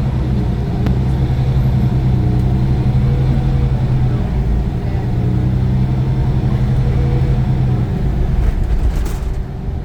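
Iveco Cursor 9 diesel engine of a Crossway LE 12 bus running with a steady, strong low drone that fades about eight seconds in, and a short crackle about nine seconds in.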